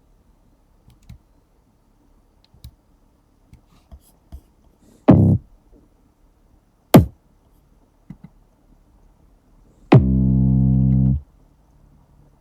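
Computer mouse clicks, then drum samples previewed one at a time: a short low kick about five seconds in, a sharp hit about two seconds later, and a held low synth-bass note lasting about a second near the end.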